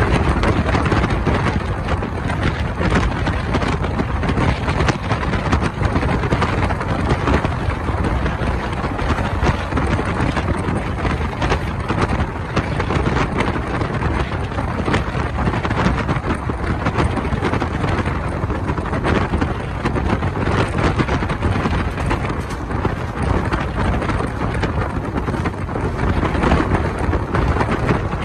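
Indian Railways passenger train running at speed, heard from an open carriage window: a steady rumble with rapid clatter of the wheels on the rails, under heavy wind buffeting on the microphone.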